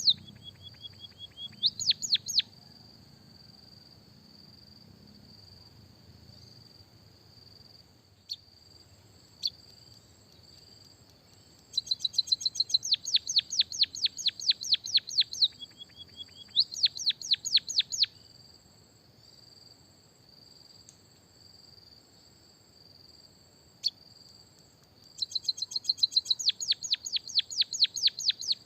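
A small finch's song: fast runs of sharp down-sweeping chirps, about a dozen a second, coming in three bouts (at the start, in the middle and near the end). A steady high trill runs underneath throughout, with a few single chirps in between.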